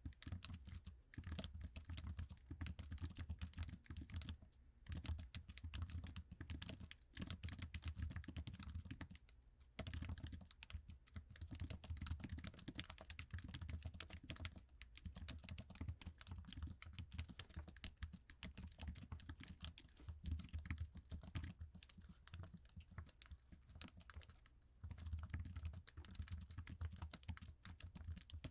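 Continuous fast typing on the stock Apple iMac keyboard, a dense run of key clicks with a few short pauses.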